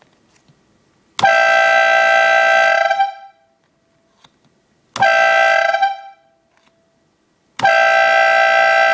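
A homemade twin-trumpet air horn, blown by a Craftsman portable inflator air compressor, sounds three loud blasts: about two seconds, then about one second, then another of about two seconds near the end. Each blast is one steady, bright chord that dies away as the air is switched off.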